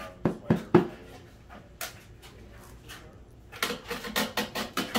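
Hand taps knocking a melamine-faced particleboard drawer-box panel down onto its glued dowels at the corner joint. Three quick knocks come first, a single sharper tap about two seconds in, then a fast run of about eight knocks near the end.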